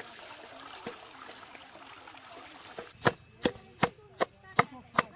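Food being chopped with a blade: sharp, evenly spaced strokes, about two and a half a second, starting about three seconds in, over low background noise.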